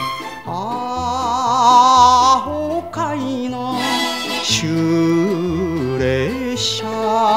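Instrumental interlude of a Japanese kayōkyoku ballad. A lead melody with wavy vibrato and sliding notes plays over a steady, stepping bass line.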